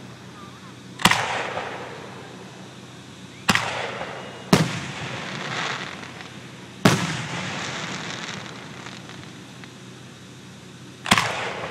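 Fireworks aerial shells bursting: five sharp booms, about a second in, twice in quick succession around three and a half and four and a half seconds, again near seven seconds, and once more near the end, each trailing off in a long echoing decay.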